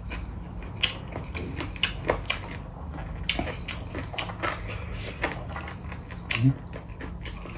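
Close-up eating sounds: irregular crunchy chewing and fingers mixing rice and curry on a steel plate, a steady run of small clicks and crackles.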